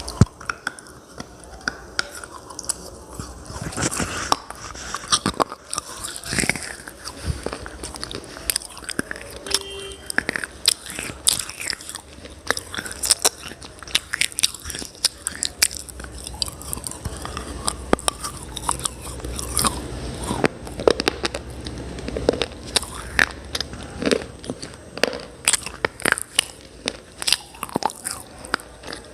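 Close-up biting and chewing of brittle baked-clay slate pencils and chalky clay cubes: many sharp, irregular crunches and snaps, sparse for the first few seconds, then coming thick and fast.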